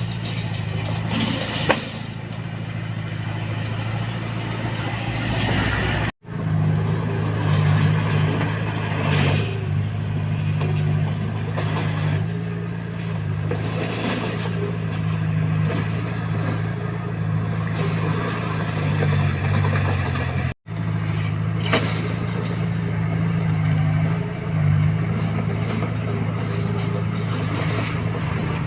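Komatsu D21A bulldozer's diesel engine running steadily under load, with scattered knocks and clanks from the machine at work. The sound cuts out for an instant twice, at about six seconds and about twenty seconds in.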